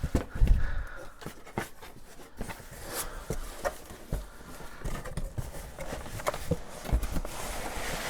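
Cardboard box and packaging being handled as a computer is lifted out: scattered knocks and rustles, with low thumps at the start and about seven seconds in.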